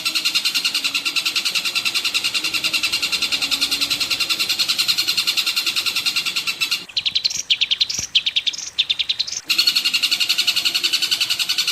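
Recorded bird song: a fast, steady run of high chirps repeating many times a second. Around seven seconds in it gives way to a different call of sharper, spaced notes for a couple of seconds, then the fast chirping resumes.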